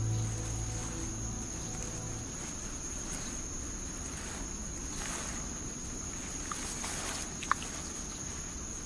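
Insects calling in a steady, high-pitched drone, one unbroken tone, with a single short sharp chirp about seven and a half seconds in. Background music fades out during the first two seconds.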